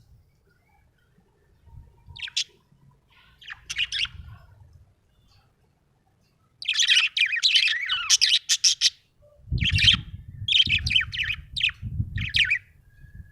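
Budgerigar chirping: two short chirps, then a long run of rapid, high chirps and warbles in the second half, with a low rustling noise underneath near the end.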